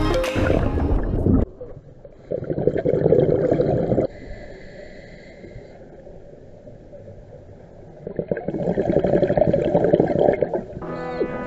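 Underwater rush of bubbles and water from a water entry, dying away about a second and a half in. It is followed by two rumbling bursts of a scuba diver's exhaled bubbles from the regulator, each about two seconds long, with a quieter breath in between. Music comes in near the end.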